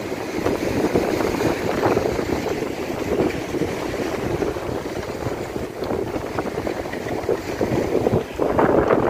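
Seawater sloshing and gurgling irregularly in the gaps between concrete breakwater tetrapods, with a louder surge near the end.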